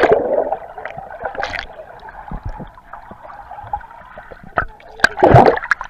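Water sloshing and gurgling in a small pool as children move in it, with a loud splash about five seconds in.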